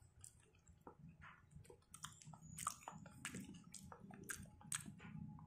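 Faint close-up chewing: soft wet mouth smacks and small clicks scattered irregularly as someone eats.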